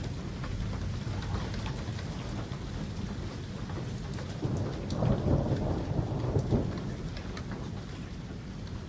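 Thunder rumbling over steady rain, with scattered raindrop ticks close by. The rumble swells about halfway through and fades away over the last couple of seconds.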